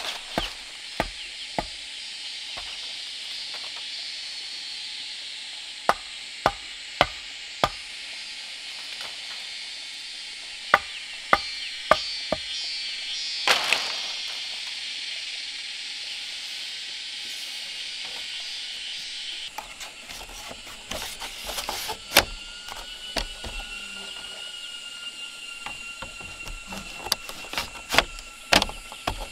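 Sharp separate knocks, some in quick groups of two or three, over a steady high hiss; a steady high whistling tone comes in near the end.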